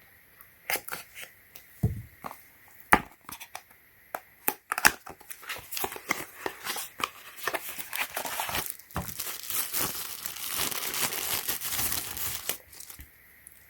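Packaging around a Lightning-to-HDMI cable being crinkled and torn open by hand. It starts as scattered crackles and clicks, then becomes a dense, continuous crinkling from about halfway through, and stops shortly before the end.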